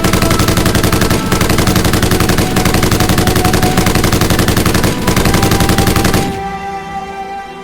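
Rapid automatic gunfire in one long unbroken burst of about six seconds that stops abruptly, over background music.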